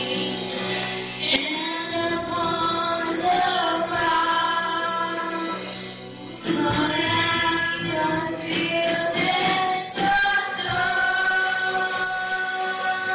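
A small group of women singing a gospel song together in harmony over instrumental accompaniment, with long held notes and brief breaks between phrases.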